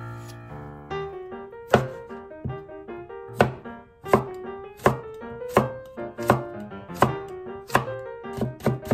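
Chef's knife slicing a cucumber on a wooden cutting board: sharp knocks of the blade hitting the board, about one every 0.7 seconds from about two seconds in, quickening near the end.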